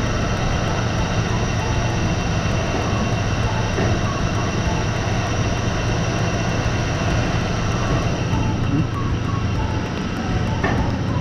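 Dynamic balancing machine spinning a ship's main-engine auxiliary blower impeller on its test run: a steady mechanical hum with several held tones. One short click near the end.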